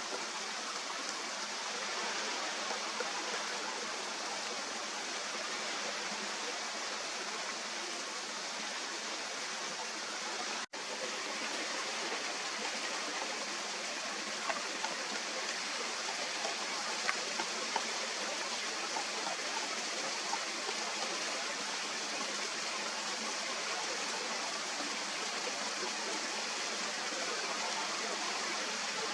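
Steady rushing noise, like running water, broken by a brief dropout about eleven seconds in, with a few faint ticks after it.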